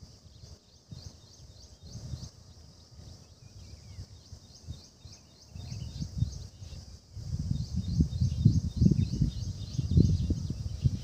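Wind buffeting the microphone in gusts, much stronger from about seven seconds in, over a high chirp repeated steadily about three times a second from a small creature.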